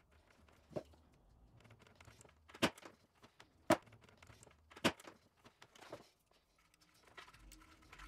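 Side cutters and pliers working the grey sheath of twin-and-earth cable: a few sharp snips and clicks about a second apart, with faint rustling as the bare earth wire is pulled down to split the sheath.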